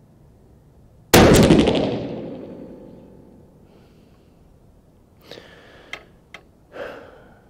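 A single loud rifle shot from a Howa 1500 in 6.5 PRC fitted with a ThunderBeast (TBAC) muzzle brake, about a second in, echoing for a couple of seconds off the covered range's block walls. About four seconds later come four short clicks and clacks as the bolt is worked to chamber the next round.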